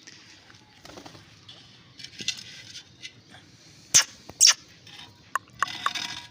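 Green ringneck parrot making raspy, scratchy chatter on and off, with two short, sharp screeches about four seconds in.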